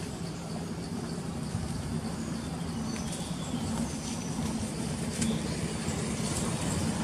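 A motor vehicle's engine running steadily, growing louder toward the end.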